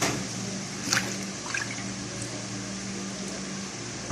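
Water splashing and trickling as a raw octopus is washed, with a few brief wet splashes over a steady low hum.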